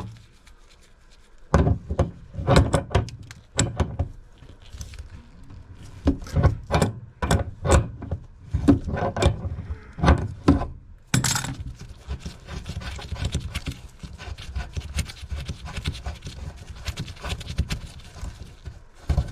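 Hand tools working on rusted, seized metal sink supply valves and rigid supply lines: a run of separate sharp clanks and knocks, then about eleven seconds in a steady run of rapid clicking and scraping.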